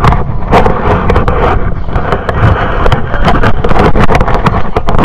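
Wind rushing over the microphone of a handheld camera carried while running, with many quick, irregular knocks from footfalls and the jostled camera.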